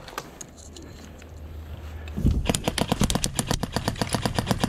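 Airsoft gunfire: a rapid run of sharp cracks, about ten a second, starting a little past halfway after a single low thump, over a steady low rumble.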